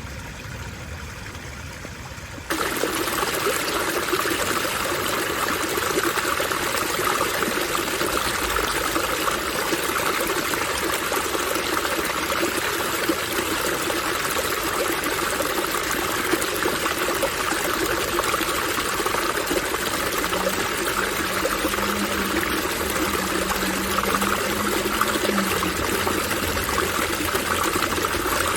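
Water from a park fountain splashing and rushing steadily, jumping suddenly louder about two and a half seconds in and then holding even.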